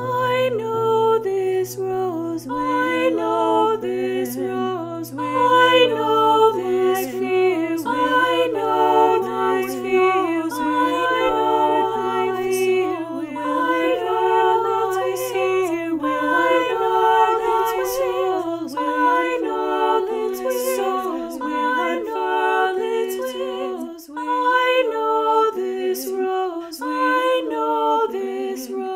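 A cappella singing: several voices moving together in harmony without instruments. A low steady drone sits underneath and drops out about two-thirds of the way through.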